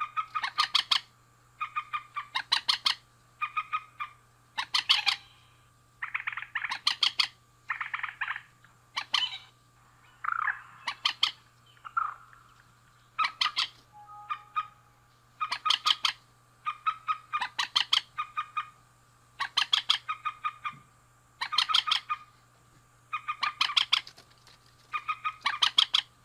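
Male and female mandar (rail) calling: short bursts of rapid, harsh repeated notes, about one burst a second, over and over. A steady low hum runs beneath.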